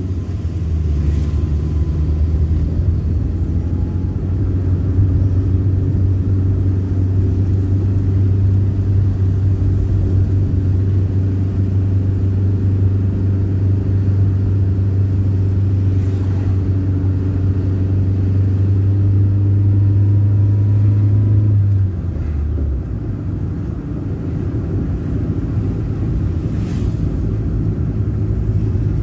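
Car engine and road noise heard from inside the cabin while driving downhill: a steady low drone. About three quarters of the way through, the drone drops in level and turns rougher.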